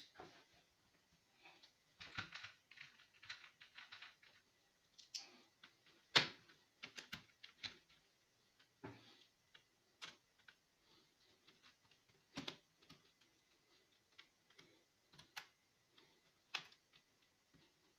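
Irregular light clicks and taps of hands working on a laptop, scattered and uneven, with one sharper knock about six seconds in.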